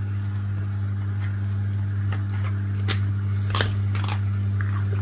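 A steady low hum runs throughout, over water pouring from a pipe into a flooded, clogged basement floor drain. A few sharp clicks come about three seconds in, as pliers work inside the drain.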